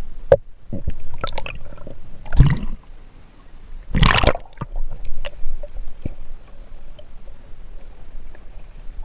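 Muffled knocks and water movement picked up by a camera held underwater in a river, with a loud splash about four seconds in as the water surface is broken.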